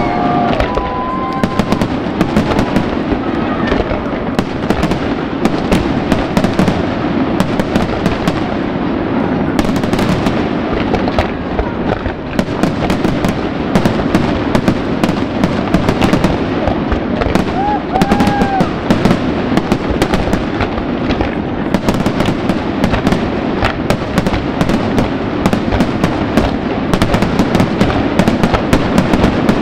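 Aerial fireworks going off continuously: a dense crackle of many sharp pops over a steady rumbling hiss, growing busier near the end as larger shells burst.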